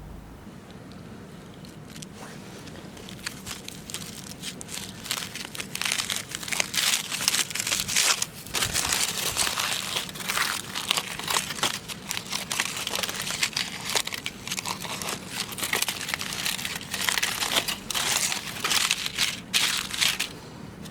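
Crinkling and crackling begin a few seconds in and go on densely and irregularly, like paper or plastic being crumpled and handled close by.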